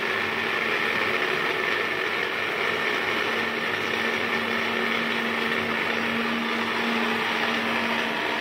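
Electric countertop blender running steadily at one speed, its motor humming evenly, as it blends milk, water and ice cubes into lassi.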